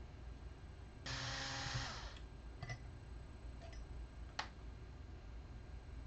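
Cordless power driver's motor running in one short burst of about a second, followed by a few small clicks and one sharp click.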